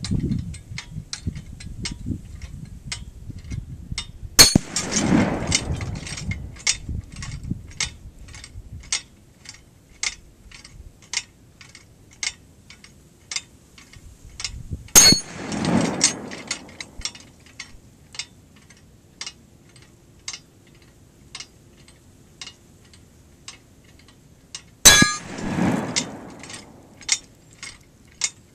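Three .308 168-grain bullets striking a half-inch AR-500 armor steel plate, each hit a sharp metallic clang about ten seconds apart, followed within a second by the duller report of the rifle fired from 100 yards. Between hits there is light, regular ticking about twice a second from the plate's chains as it swings on its stand.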